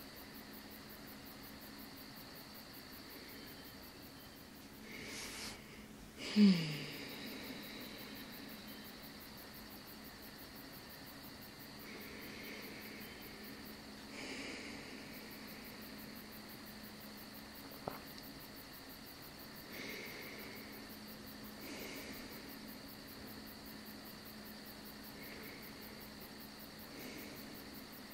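Slow, audible in-and-out breaths, about four breath cycles a few seconds apart. The first out-breath, about six seconds in, is the loudest and ends in a soft voiced sigh that falls in pitch. A faint steady high tone and a low hum run underneath.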